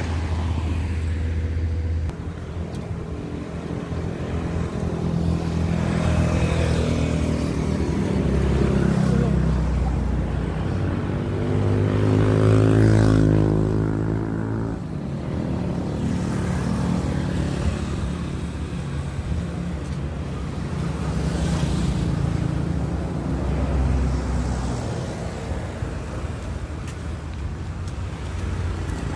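Motor vehicle engines running steadily, with one vehicle passing and loudest about twelve to thirteen seconds in.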